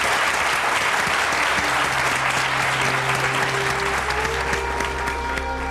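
Studio audience applauding, the clapping thinning out as slow music with long held notes comes in and grows over the second half.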